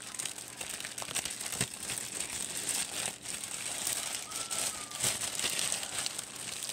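Plastic bread bag crinkling continuously as it is handled and opened, with many small irregular crackles.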